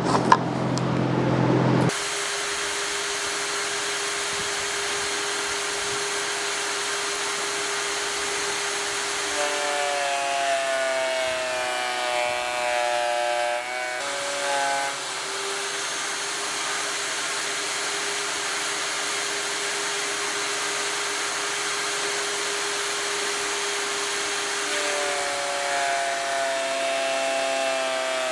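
Vevor benchtop thickness planer running steadily, its motor pitch shifting as pine stair treads are fed through and cut, about ten seconds in and again near the end. In the first two seconds, a scraper rubs dried glue off a tread.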